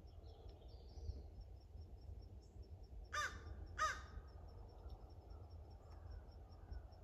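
A crow cawing twice in quick succession about three seconds in. Under it runs a faint, steady high ticking at about four beats a second.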